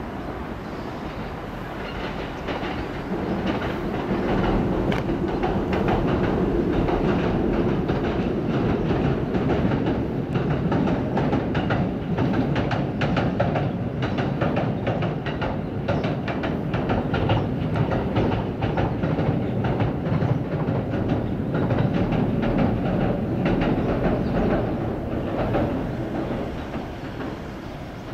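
JR West 227 series electric train crossing a steel truss railway bridge: a steady rumble with repeated wheel clacks. It builds over the first few seconds and eases off near the end.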